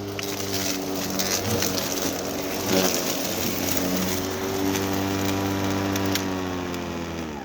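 Greenworks Pro 80-volt cordless electric lawnmower running with a steady hum as it cuts through overgrown weeds and grass, with scattered ticks of debris. Near the end it winds down in a falling whine as it is switched off.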